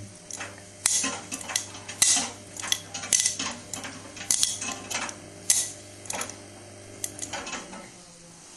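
Samsung WW80J5555FWEU washing machine's drum turning under a steady motor hum, with irregular clinks and clatters as the load tumbles against the drum. The hum stops near the end.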